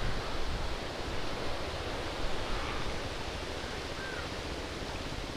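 Steady outdoor wind noise on the microphone, a rushing haze with most of its weight in the low end. A single faint short chirp comes through about four seconds in.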